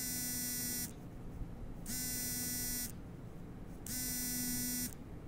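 An electronic buzzer beeping in a steady on-off rhythm, each harsh buzz about a second long with about a second's gap: three buzzes.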